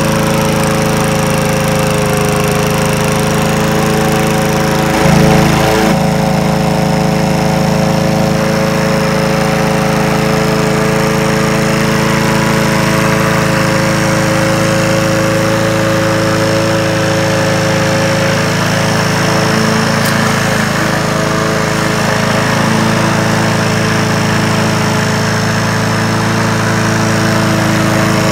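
Honda HR17 lawnmower engine running steadily on its own, just started after years in storage; it runs smoothly with no misfire. The engine note briefly gets louder about five seconds in.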